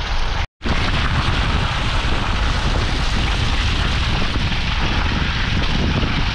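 Car on the move, a steady rumble of engine and road noise heard inside the cabin. It cuts out to silence for a moment about half a second in.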